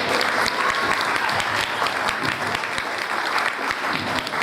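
Audience applauding: dense, sustained clapping from a crowd.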